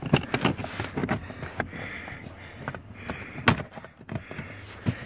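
Plastic lower dash trim panel being pushed onto its retaining tabs: scattered clicks and knocks with plastic rubbing and scraping between them, the loudest knock about three and a half seconds in.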